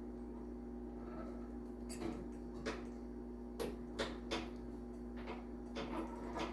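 Scattered light clicks and taps of a snowblower chute cable and its fitting being handled and slipped into place, over a steady low hum.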